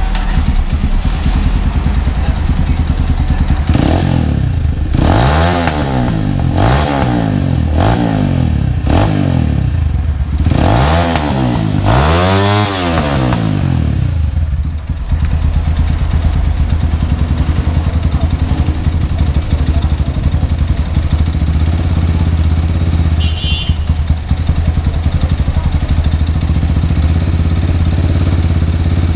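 GPX Rato Esquire 250 motorcycle engine running on a newly fitted 28 mm carburettor that is being tuned: a series of about seven quick throttle blips, each rising and falling in pitch, then the engine settles into a steady idle.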